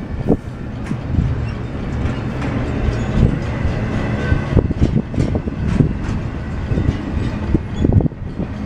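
Double-stack intermodal well cars rolling past at close range: a steady rumble of steel wheels on rail, with irregular knocks and clatter as the wheels cross the track.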